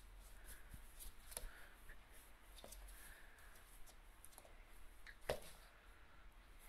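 Faint scuffling and rustling as a kuvasz puppy tugs at fleece clothing with its teeth, with scattered soft clicks and one sharper tap about five seconds in.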